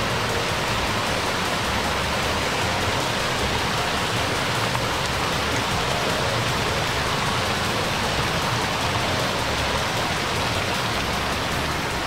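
Steady rush and splash of falling water: a small cascade pouring over stone into a rocky stream below a waterfall.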